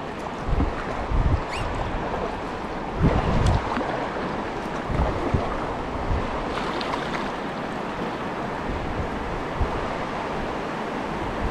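River water rushing steadily around a kayak as it nears a rapid, with a few low thumps of wind buffeting the microphone in the first few seconds.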